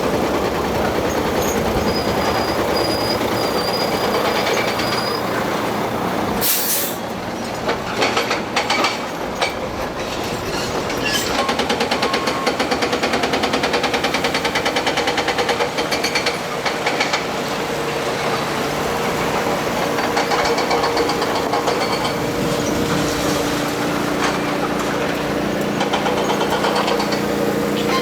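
Excavator working: its engine runs steadily under load, with clanks and knocks. A short sharp hiss comes about six and a half seconds in, then a fast rhythmic pulsing for several seconds, and steady droning tones hold through the last part.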